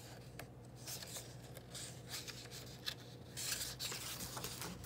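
Faint handling of a hardcover picture book, with a louder paper rustle about three and a half seconds in as a page is turned.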